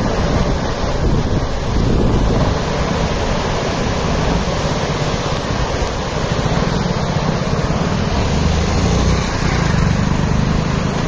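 Steady rushing roar of a fast, muddy river in flood, with wind buffeting the microphone.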